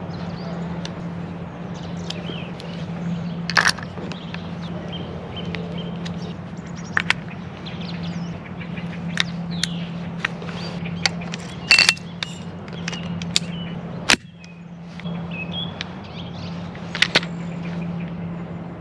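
A steady low hum with scattered sharp clicks and short high chirps over it.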